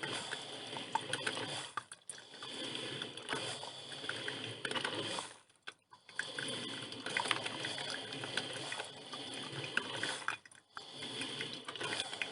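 Drip filter coffee machine brewing: hissing and gurgling with small crackles and pops as the heated water is pushed up and through, dropping away briefly three times.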